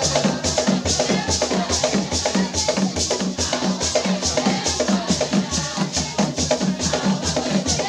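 Live drumming for a traditional dance: a fast, even beat with a shaker-like rattle on each stroke.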